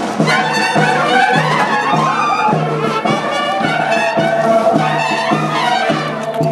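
Brass band playing morenada music, trumpets and trombones carrying the melody over a steady pulsing bass and drum beat.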